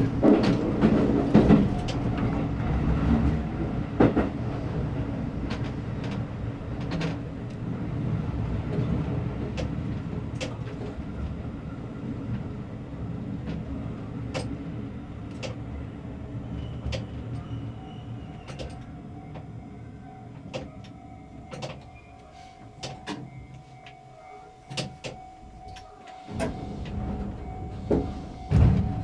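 Shin-Keisei Line electric train heard from the cab, its running noise over the rails slowly fading as it slows for the station. Sharp clicks go on throughout, and a steady hum-like tone comes in during the second half.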